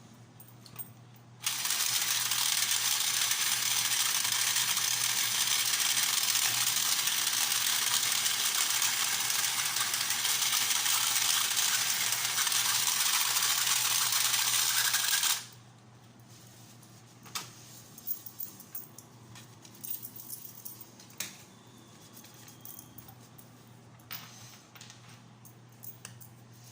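Small electric motor and gear train of a toy horse-race track running, a steady rattling whir for about fourteen seconds that starts and stops abruptly, with its gears freshly oiled. Light clicks and knocks of parts being handled follow.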